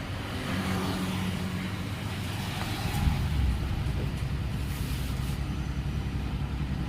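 Electric kettle heating water close to the boil: a steady low rumble with a hiss, stronger from about three seconds in. Its element is working again after the repair.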